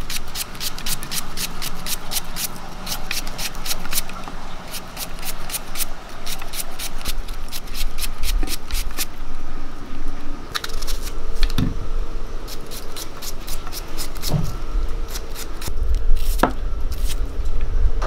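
Large knife slicing a raw onion held in the hand: quick crisp cuts, about three or four a second, thinning to occasional cuts after the middle. A low rumble comes up near the end.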